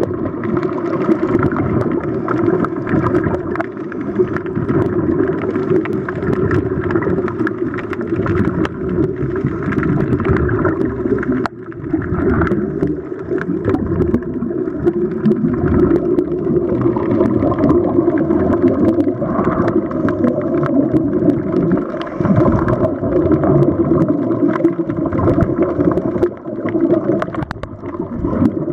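Dense, muffled underwater noise, steady throughout, with scattered faint clicks, picked up by a camera filming beneath the sea surface.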